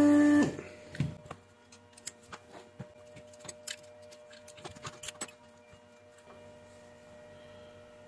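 A loud steady droning tone cuts off about half a second in. Scattered light clicks and taps follow, from a switch-mode power adapter's circuit board and metal multimeter probes being handled. A faint steady electrical hum remains near the end.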